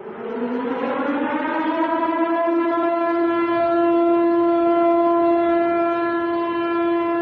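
Civil defense warning siren winding up, its pitch rising over about two and a half seconds, then holding one loud steady tone.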